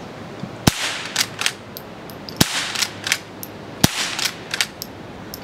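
Chiappa LA322 lever-action .22 Long Rifle firing CCI Quiet 40-grain low-velocity rounds: three sharp cracks about a second and a half apart, not much louder than an air rifle. After each shot the lever is worked, a couple of light metallic clacks.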